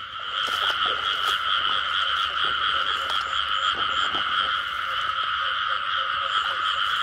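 Dense chorus of many frogs calling at once in a flooded rice field, a steady din that grows louder about half a second in.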